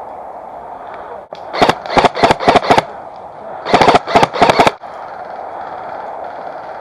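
Airsoft gun firing two quick bursts of about six shots each, about a second apart, with sharp, loud reports.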